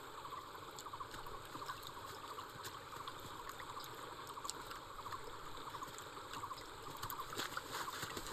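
Shallow stream trickling and babbling over rocks, a little louder near the end.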